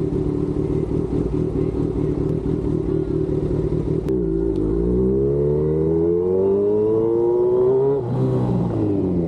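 Kawasaki Z1000 motorcycle's inline-four engine running at a steady speed. About four seconds in it pulls away, its pitch climbing smoothly for about four seconds, then drops abruptly and begins to climb again near the end.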